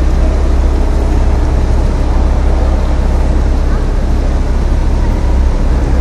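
Boat engine running steadily, a loud low drone that hardly changes.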